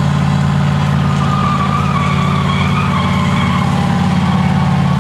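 Pickup truck engine held at steady high revs with its tires spinning. A wavering squeal rides over the engine's steady note.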